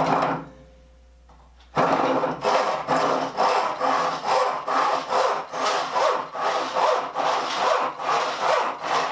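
Sharp handsaw with evenly set teeth cutting through a board in steady, even strokes, about two a second, starting about two seconds in. The strokes are regular with no catching or skipping: the smooth cut of a well-sharpened saw.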